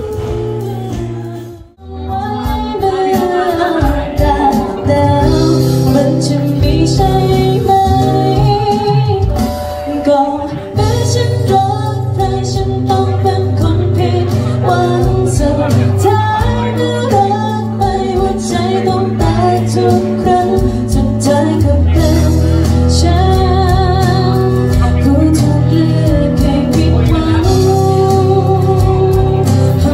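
Live female vocal sung into a handheld microphone, with guitar and a steady bass line, amplified through a PA system. The music drops out briefly about two seconds in.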